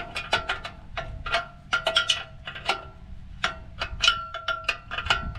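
Quick, irregular light metal clinks and taps, some ringing briefly at the same pitch.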